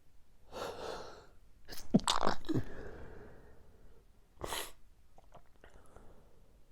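A person sneezing during an allergy sneezing fit. A drawn-in breath is followed by a loud sneeze about two seconds in, then a shorter breathy burst a couple of seconds later.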